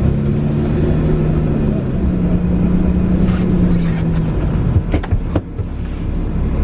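A car engine revving and held at steady raised revs for about four seconds, then dropping off, as a car stuck in snow tries to pull free. Two sharp knocks come near the end.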